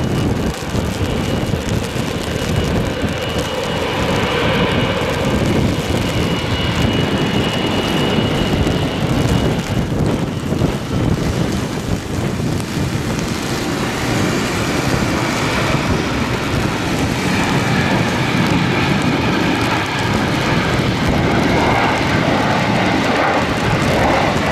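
Boeing 777-200ER jet engines whining at taxi power, getting a little louder and more tonal in the second half as the airliner taxis closer, over a steady hiss of rain.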